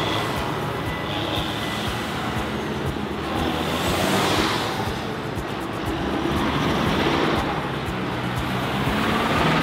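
Diesel engines of large farm tractors driving past one after another. The engine noise swells as a green-and-yellow John Deere passes close about four seconds in.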